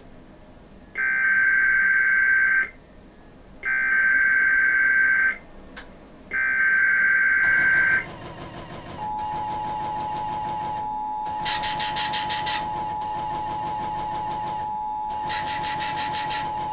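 Emergency Alert System activation for an Amber Alert. It begins with three harsh digital screeches of SAME header data, each about a second and a half with short pauses between. About nine seconds in, the steady two-tone EAS attention signal starts, with two brief bursts of noise over it.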